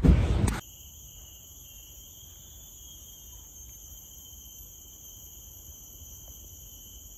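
After a brief loud, noisy moment at the very start, a steady, high-pitched insect drone, a forest chorus of crickets or cicadas, runs on unchanged at a low level.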